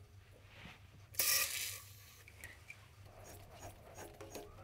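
A tap cutting a fine M10 x 0.5 mm internal thread: one short scraping rasp about a second in, then a few faint ticks, over a low steady hum.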